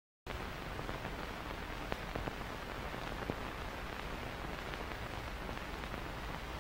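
Steady hiss and faint crackle of an old film soundtrack, with no other sound. It cuts in abruptly about a quarter second in, with a few small ticks scattered through it.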